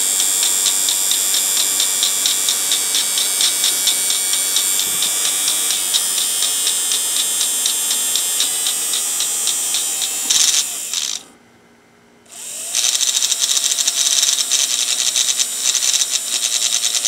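Small blender motor running bare on a 24-volt supply, driving its worn plastic gear train: a steady high whine with a fast, even clicking. About eleven seconds in it cuts out for over a second, then starts up again.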